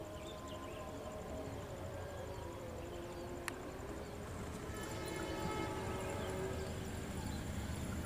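Diesel locomotive hauling a passenger train as it approaches, its engine and wheel rumble building and growing louder from about halfway through. Faint drawn-out tones sound in the first half, with a single click.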